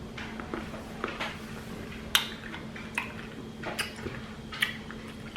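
Close-up eating sounds: chewing chicken salad with a few sharp, irregular mouth smacks or clicks, the loudest about two seconds in. A steady low hum runs underneath.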